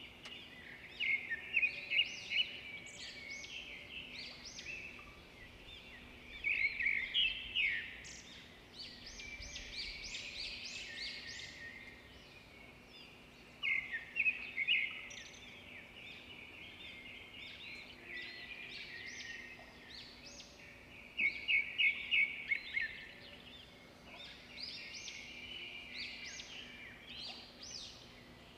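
Birdsong: loud bursts of rapid high chirps and trills about every six or seven seconds, with quieter twittering in between.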